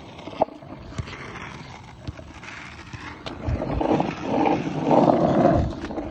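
Skateboard wheels rolling over rough asphalt, a steady coarse rolling noise with a few sharp clicks, growing louder about four seconds in.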